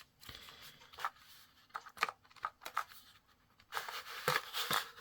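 Small cardboard gift box being handled and opened: a series of light taps and clicks, then a longer rustling scrape about four seconds in.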